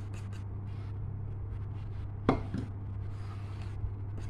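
A sharp knock of kitchenware about two seconds in, followed by a lighter knock, over a steady low hum.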